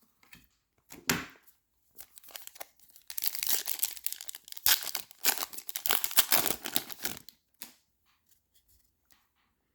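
The plastic wrapper of a trading card pack being torn open and crinkled. A few scattered crackles come first, then about four seconds of dense tearing and crumpling, dying to a few faint ticks near the end.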